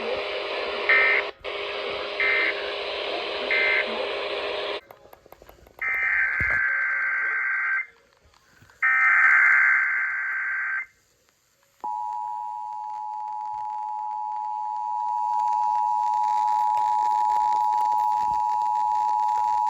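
Emergency Alert System tones over radio. First comes noisy radio audio with three short beeps. Then two bursts of SAME digital header data screech, then the two-tone EAS attention signal held steady for about eight seconds, announcing an incoming alert.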